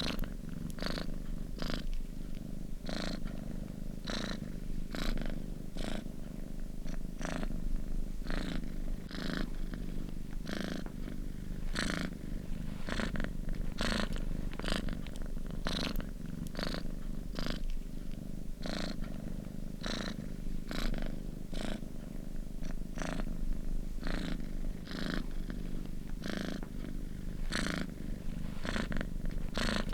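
Domestic cat purring steadily, with an even rhythm of about two pulses a second.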